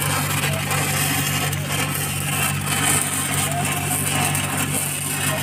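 Stick arc welding on a steel pipe joint with cellulosic 6010/7010 electrodes: the arc crackles and sizzles steadily, over a constant low machine hum.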